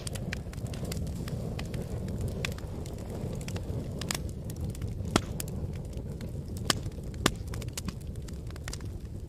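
Wood fire crackling: frequent sharp snaps over a steady low rumble of burning, with three louder pops in the second half.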